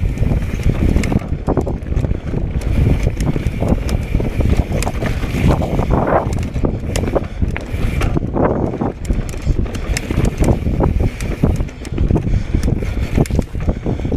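Mountain bike riding over a rocky trail: tyres rumbling on stone, with frequent sharp clatter and knocks from the bike, and heavy wind noise on the chest-mounted camera's microphone.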